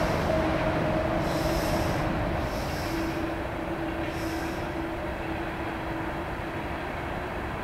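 CSX mixed freight train's cars rolling past, a steady rumble of wheels on rail with a thin, steady high tone running through it, slowly getting quieter.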